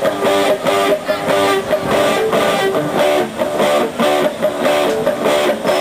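Punk rock band playing live: electric guitars strumming chords over a steady beat, with hits about twice a second.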